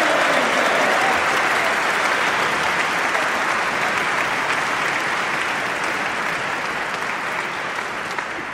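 Audience applauding, the applause slowly dying away toward the end.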